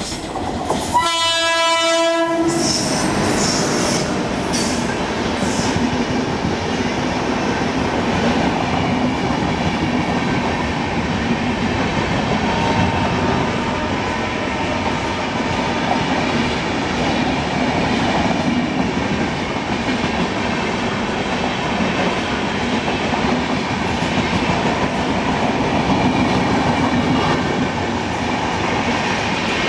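WAP-7 electric locomotive sounding its horn once, a blast of about a second and a half about a second in. Then the express's passenger coaches pass at speed: a loud steady rumble of wheels on rail with rhythmic clatter over the rail joints.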